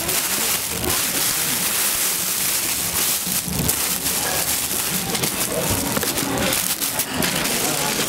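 Plastic film rustling and crinkling as hands peel it back from a box of cooked rice and dig into the rice, against a steady noisy background.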